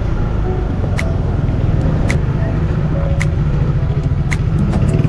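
Small motorcycle engine running as it rides along, its pitch and loudness picking up near the end. A sharp tick comes about once a second.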